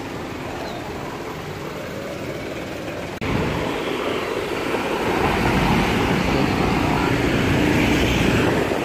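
Street traffic: a steady background hum of road traffic, then about three seconds in a sudden jump to louder, closer traffic noise that swells a little and holds.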